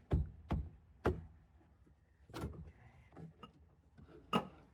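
Hard plastic interior trim being handled and pushed into place, giving a handful of sharp, unevenly spaced knocks and clicks, the loudest near the end.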